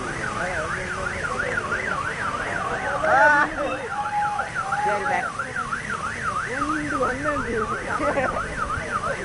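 An electronic siren or alarm warbling rapidly up and down in pitch, several sweeps a second, with fainter wavering sounds beneath it and a brief louder sound about three seconds in.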